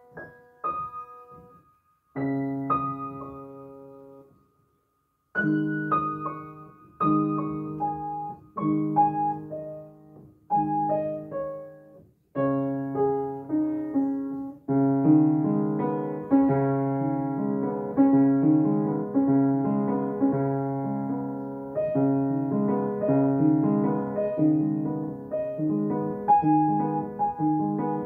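Solo upright piano: slow chords that ring and fade, with a brief pause a few seconds in, then chords about every second and a half. About halfway through it fills out into continuous playing with a steady rhythm.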